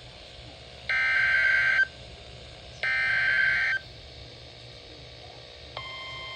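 Emergency Alert System SAME header data bursts from a weather radio: two harsh one-second screeches about a second apart, the last two of the header's three repeats. Near the end the steady 1050 Hz NOAA Weather Radio warning alarm tone starts, signalling an incoming warning.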